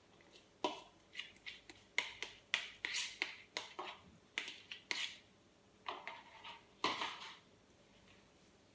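Hands mixing wet yeast dough in a bowl: an irregular run of sticky, sharp wet clicks and slaps as the flour, oil and water are squeezed together, stopping near the end.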